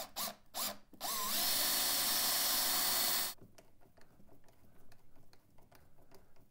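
Makita power drill with a 5/16 bit drilling a hole through the fan shroud: it starts about a second in, runs at a steady speed for about two seconds and stops abruptly. Faint light clicks follow.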